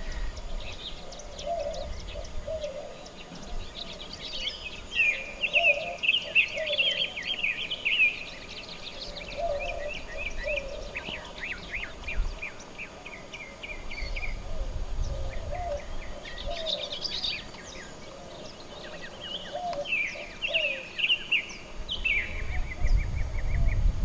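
Several wild birds singing and calling, with quick, chattering high phrases over a few lower, softer notes. A low rumble comes and goes.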